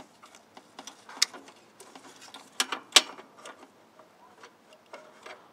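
Light metallic clicks and taps from the bypass lever linkage and its spring on a Hydro Gear hydrostatic transmission being worked loose by hand, with two sharper knocks about halfway.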